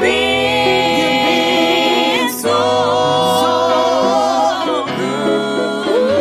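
Gospel song: voices singing long held notes in harmony over a bass line.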